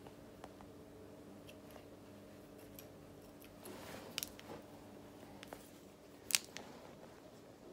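Hairdressing scissors snipping into short hair in scattered single cuts as the tips point-cut the ends. The sharpest snip comes a little over six seconds in, over a faint steady hum.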